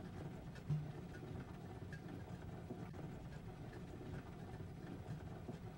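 A stainless-steel pot steaming on the stove, giving a low, steady rumble with a brief louder bump a little under a second in.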